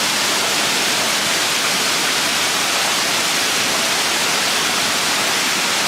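Steady rushing hiss of a waterfall, even and unbroken.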